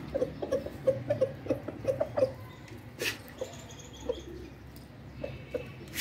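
Chickens clucking while feeding: a quick run of short, low clucks in the first two seconds, then a few scattered ones, with one sharp knock about three seconds in.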